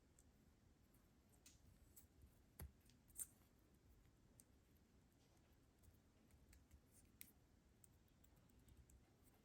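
Near silence with a few faint, scattered clicks and one soft knock, handling noise from small objects being touched.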